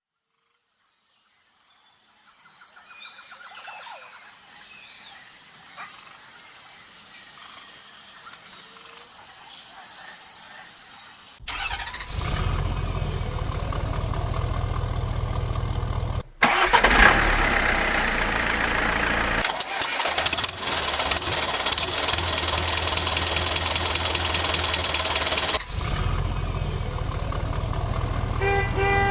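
Vehicle engines running in several abruptly cut segments, faint for the first ten seconds or so and then loud, with a horn toot starting just before the end.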